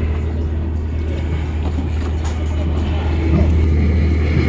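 Fishing boat's engine running with a steady low drone, with faint voices over it.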